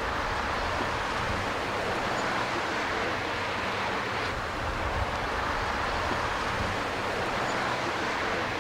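Steady outdoor traffic noise as cars drive past, with an uneven low rumble of wind on the microphone.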